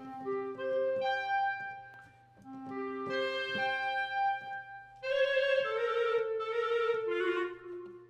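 Two clarinets in unison, sampled from the Spitfire Symphonic Woodwinds library, play a phrase of separate notes that rise and fall. About five seconds in the notes turn louder and brighter, played with the marcato (accented) articulation.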